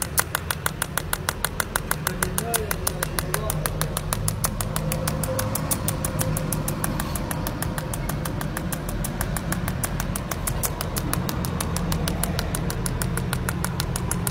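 Pulsed TIG arc from a Jasic TIG 300S cold-welding welder, laying a bead on a metal tube: a steady, rapid ticking of about five pulses a second over a low hum. The short pulses are the cold-weld mode, which keeps the heat in the thin tube low.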